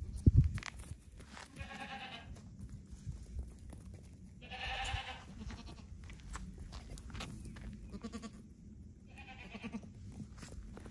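Week-old goat kids bleating three times: once about two seconds in, a longer, stronger bleat near the middle, and again near the end. A sharp low thump just after the start, and light taps of hooves on concrete between the calls.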